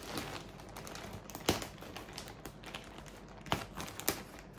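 Scissors cutting open a plastic mailer bag: the plastic crinkles and rustles, with small clicks throughout and a few sharper snips of the blades.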